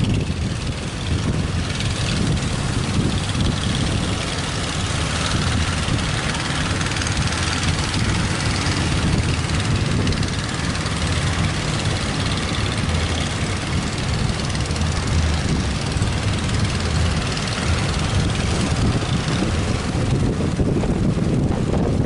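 Strong wind buffeting the microphone, a steady low rumble over a hiss of sea and surf.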